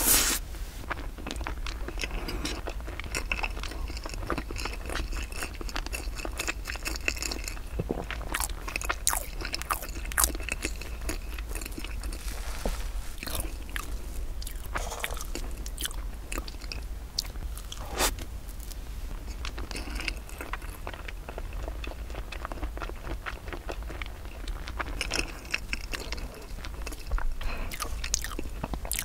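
Close-miked ASMR eating of rice-flour layer cake with cream filling and a crumbly topping: steady chewing and biting with many small crunchy clicks, a few sharper ones at the start, about ten seconds in and again later.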